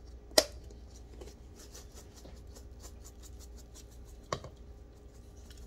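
Spice shaker jar of dried chopped chives shaken over a foil-lined baking tray: a run of faint quick ticks as the flakes fall, with a sharp click about half a second in and another near the end.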